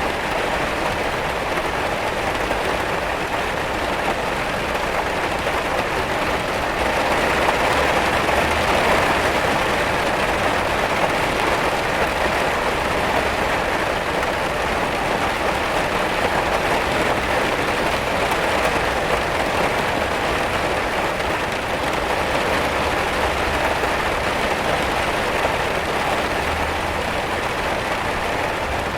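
Steady rain pattering against a window pane, swelling slightly for a few seconds early in the recording.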